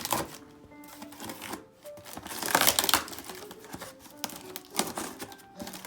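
Cardboard box being opened and its packaged contents handled: scattered clicks and knocks, with a louder rustle of packaging a little over two seconds in.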